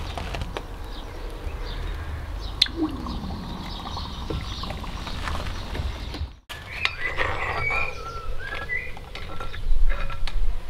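Molten copper-brass-bronze alloy quenched in a cast-iron pot of sour liquid, hissing and bubbling as it sets into granules. After a cut about six seconds in, a metal spoon scrapes through the steaming granules among short high chirps.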